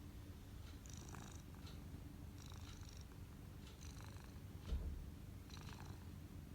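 Domestic cat purring steadily, with soft scratchy rustles about every one and a half seconds and a single low thump a little under five seconds in.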